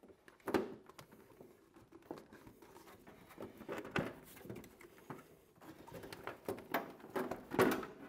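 Plastic steam cylinder of a heater-type steam humidifier being twisted and lifted out of its cabinet: irregular light knocks, scrapes and handling noise. A few louder knocks come about half a second in, about four seconds in and near the end.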